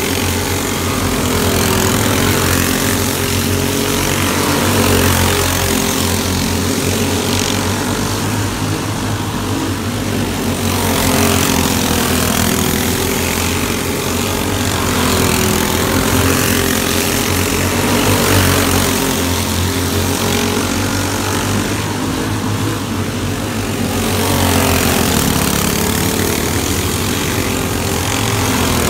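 Engines of several small kart-size winged dirt-track racing cars running laps. The steady, buzzy engine note swells and fades every few seconds as the cars come round and pass.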